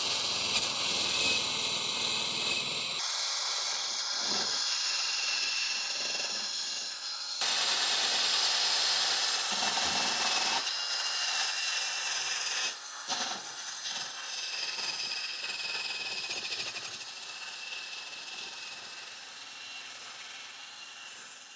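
Ryobi cordless drill spinning a wire wheel brush against a metal coolant pipe held in a vice, a steady motor whine under a harsh scratching, scrubbing off old grime and corrosion. It runs in several stretches with abrupt changes in level.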